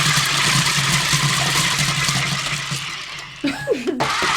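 Grrrumball remote-control toy's electric drive motor and rotating treads running steadily on a tabletop, a whirring hiss with a low hum, until it stops about three and a half seconds in. A short wavering voice-like sound follows near the end.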